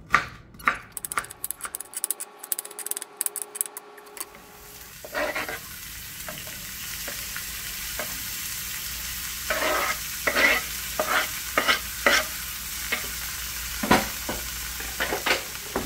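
A knife slicing onion on a wooden cutting board, quick sharp cuts for the first few seconds. From about four seconds in, diced potatoes, tomato, pepper and onion sizzle steadily in a hot cast-iron skillet, with a knife repeatedly scraping and knocking against the wooden board as the vegetables are pushed into the pan.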